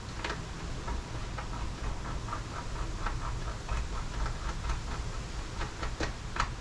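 Run of light clicks and ticks, several a second, from hand work with a screwdriver on the charge controller's wire terminals, over a low steady hum.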